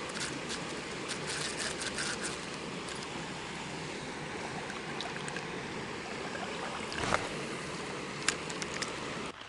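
A small river running steadily, an even rush of water, with scattered light clicks early on and one sharper knock later.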